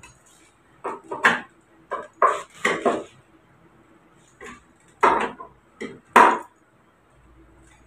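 Knocks and clatter of a screwdriver and metal parts against a washing machine's motor and plastic tub as the motor is fitted and bolted back on. The sharp clicks come in two bunches, one about a second in and one about five seconds in.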